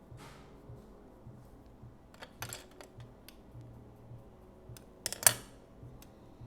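Small objects handled on a work table: scattered light clicks and taps, a short rattle about two and a half seconds in, and a sharp clatter about five seconds in, over a faint low hum.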